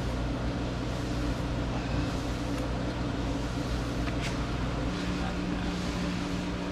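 A fan-driven machine running steadily, with a low hum and an airy hiss.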